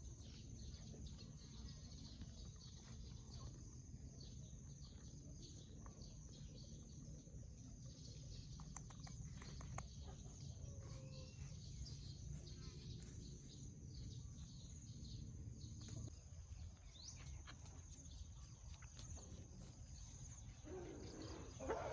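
Faint farmyard ambience: a steady high insect drone, scattered faint bird chirps and calls, and a low background rumble.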